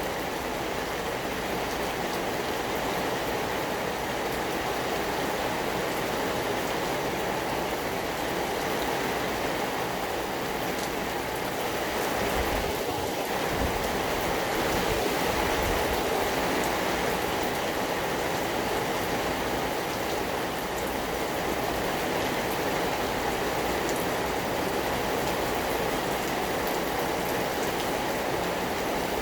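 Steady rain falling, with faint single drops ticking through it. A low rumble briefly swells about halfway through.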